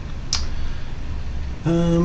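A steady low hum with one short, sharp click-like sound about a third of a second in. A man's voice starts speaking near the end.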